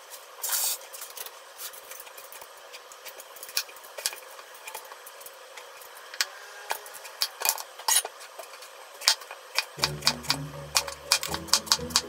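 A vegetable peeler scraping strips of skin off an eggplant, a string of sharp scrapes and clicks, then a kitchen knife cutting it on a wooden cutting board. Background music comes in near the end.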